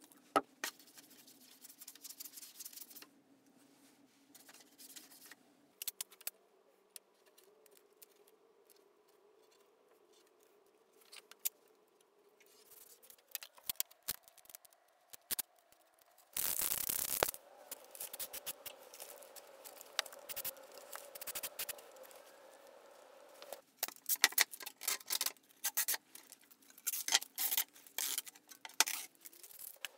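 Hands working over a rusty steel saw blade on a wooden workbench: masking tape ripped off its roll once, loudly, a little past halfway, then sandpaper rubbed on the blade in quick scratchy strokes near the end.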